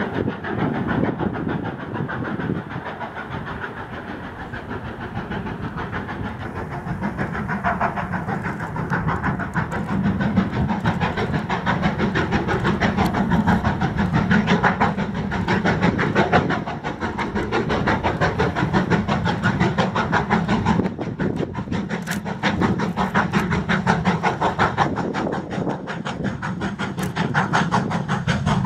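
GWR Castle class 4-6-0 steam locomotive working hard up a steep bank, its exhaust beating rapidly and steadily, growing louder as it draws near about ten seconds in, with its train of coaches rolling past on the rails.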